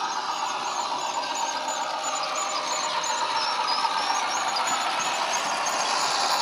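Model locomotive's ESU LokSound decoder playing a recorded EMD 8-645 diesel engine through a small speaker, running steadily and getting louder as the locomotive approaches. There is little deep bass in the sound.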